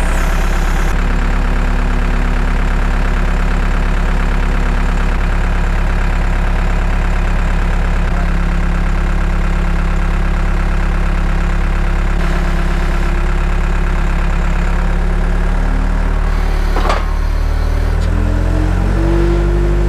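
A vehicle engine idling steadily, then rising in speed in several steps near the end. There is a single knock partway through the rise.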